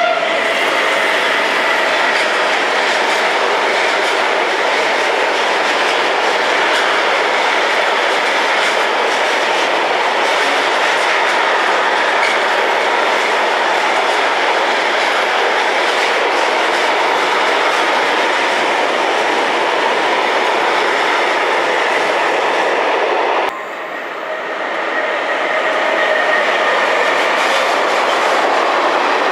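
Freight train wagons rolling past close by at speed: a loud, continuous rush of wheels on rail with clickety-clack. About 23 seconds in it breaks off abruptly, then builds up again over a couple of seconds as a second freight train of tank wagons rolls by.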